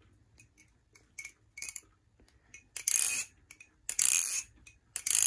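EX11 balisong with titanium handles and barrels being flipped: a few light clicks, then three louder rattling clacks of the handles against the blade, about a second apart.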